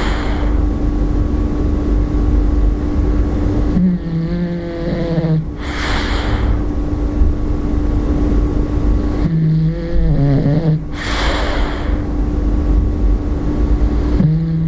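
A bulldog snoring in deep sleep, a regular cycle of breaths about five seconds apart: each is a low buzzing snore of a second or so followed by a breathy puff. Three snores fall in this stretch, one near the end.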